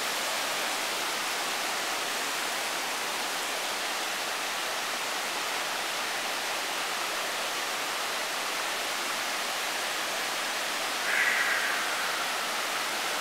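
Whitewater river rapids rushing steadily over boulders, an even, unbroken wash of water noise. About eleven seconds in, a brief high call sounds over it for about a second, falling slightly.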